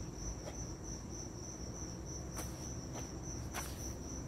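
Crickets chirring in one steady, unbroken high trill, with a few faint sharp clicks and taps over a low background rumble.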